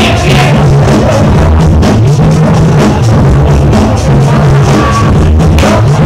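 Loud dance music played over a loudspeaker, a drum beat with a heavy, repeating bass line.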